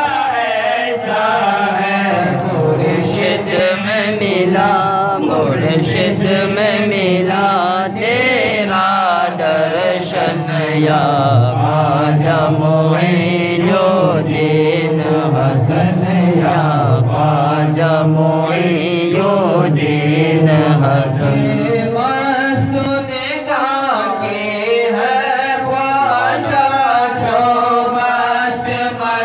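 Men's voices singing a Sufi devotional chant into microphones, with long held notes that waver and glide in pitch, one singer leading and others joining.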